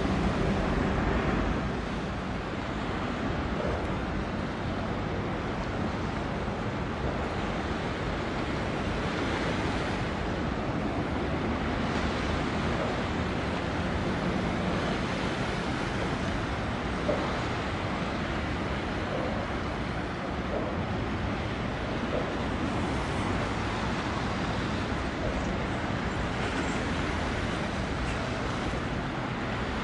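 Steady outdoor wind and water noise over a low rumble, with no clear event standing out. A horn's sustained tone dies away about a second in.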